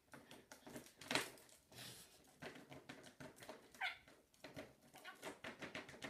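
A budgerigar chattering softly: a quick string of clicks and short chirps, with one clear downward-sliding chirp about four seconds in.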